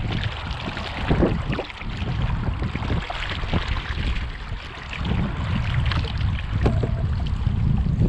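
Strong, gusty wind buffeting the microphone, over water rushing and splashing along the hull of a canoe sailing through choppy water.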